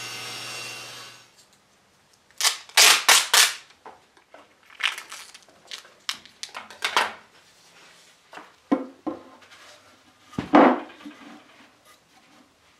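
A table saw's motor runs briefly and stops about a second in. Then comes a series of loud, rasping rips as packing tape is pulled off the roll in quick bursts, with quieter tape handling between them.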